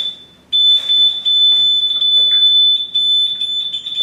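Shrill, steady electronic alarm tone. It cuts out for half a second right at the start, then sounds again unbroken, with light knocks from hands working on the wooden partition frame.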